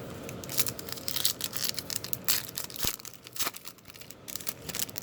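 Trading card pack wrappers being torn open and crinkled by hand, a run of irregular crackles and rips that is loudest in the first half and thins out toward the end.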